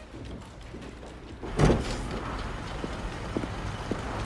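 Quiet room tone, then about a second and a half in a heavy door thuds open or shut and a steady hum of street traffic comes up, with a few light footsteps.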